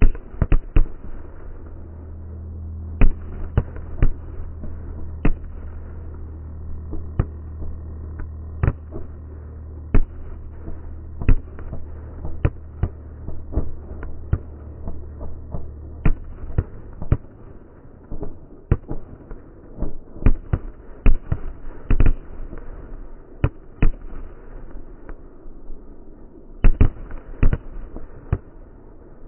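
Fireworks finale: a rapid series of sharp aerial shell bursts, about one or two bangs a second, some in quick clusters. A low steady hum runs beneath them and stops about halfway through.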